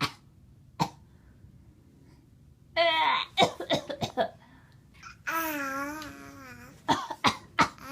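Deliberate fake coughing in short bouts: a single cough about a second in, a quick run of coughs around the middle and three more near the end. Drawn-out wavering voice sounds come between the bouts.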